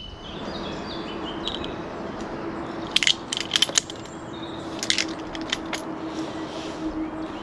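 Metal hardware of a Petzl Eject adjustable false crotch clinking as it is hauled up and released from its anchor: a cluster of sharp clinks about three seconds in and a few more about five seconds in, over a steady low hum.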